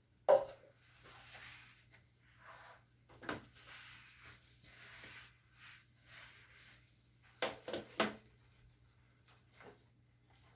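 Knocks and rubbing from items being handled while cleaning. The loudest, sharpest knock comes right at the start and another about three seconds in, with soft rubbing or wiping between, then a quick run of three or four knocks near eight seconds.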